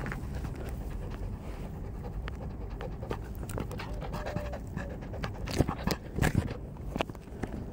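Beagle puppy panting while it plays, with a few sharp clicks about two thirds of the way through.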